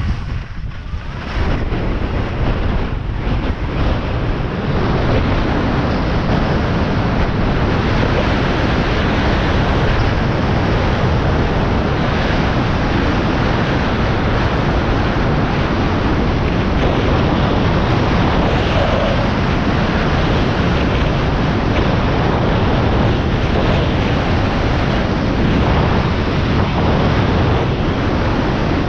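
Wind rushing over the camera microphone as a skier runs downhill at speed, mixed with skis sliding over groomed snow. The rush gets louder about a second in and then holds steady.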